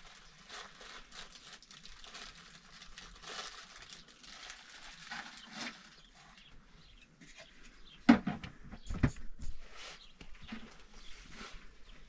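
Rustling of plastic bags and sacks being handled, then a sharp loud knock about eight seconds in, followed by a few lighter knocks.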